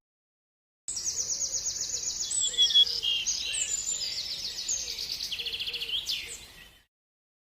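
Birds singing: fast high trills of rapidly repeated notes mixed with short chirps. The song starts abruptly about a second in and fades out near the end.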